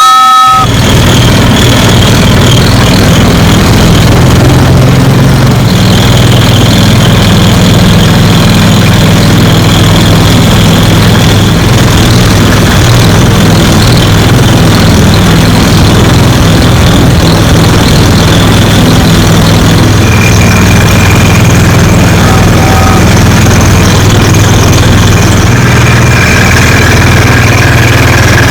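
The engine of a homemade ride-on train, running steadily. Right at the start comes a short toot from its homemade two-tone whistle, with a fainter short toot about 22 seconds in.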